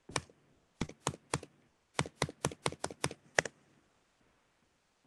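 Computer keyboard keystrokes typing a number: one key, then three, then a quick run of about seven.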